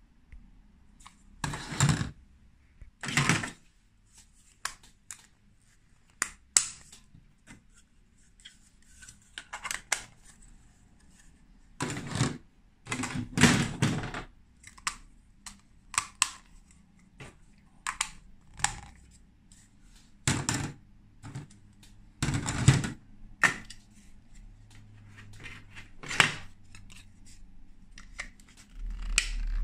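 Hard plastic Lego Duplo pieces being handled and pressed together: curved tube sections and block frames clacking and knocking, several sharper clacks with smaller ticks and rattles between.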